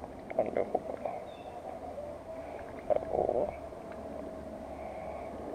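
Crackling, rustling handling noise from hands working a fishing line close to a GoPro, in two short clusters, about half a second in and about three seconds in, over a steady hum.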